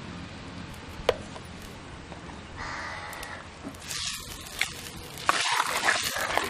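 Steel ladle stirring thick fish curry in a clay pot, the liquid sloshing from about four seconds in and louder over the last second or so. A single light tap about a second in.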